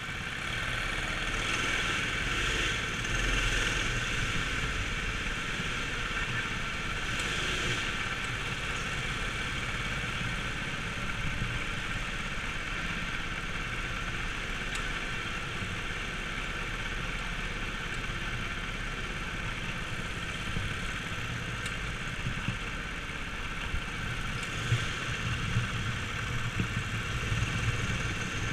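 Go-kart engines running as the kart pulls away and drives around the track, heard from on board the kart. The sound swells about a second in.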